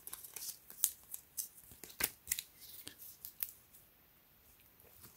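Pages of a small paper instruction booklet being flipped through by hand: a quick run of crisp paper flicks and rustles that stops about three and a half seconds in.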